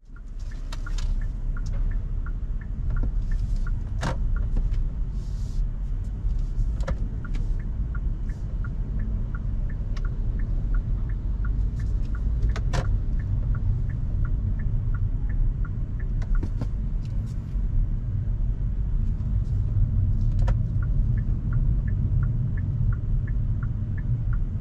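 Hyundai Kona Hybrid driving: a steady low rumble of tyres and road, with a regular light ticking about twice a second and a few scattered short knocks.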